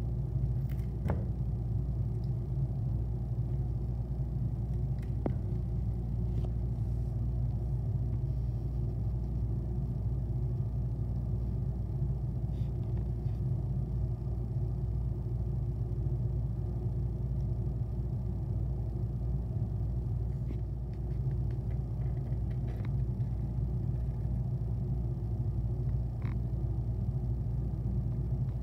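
A steady low rumble at an even level, with a few faint, sharp clicks scattered through it.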